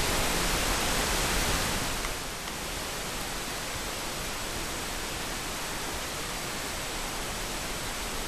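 Steady hiss of a camera's recording noise, with no distinct sounds in it. It drops a little and turns duller about two seconds in, then holds steady.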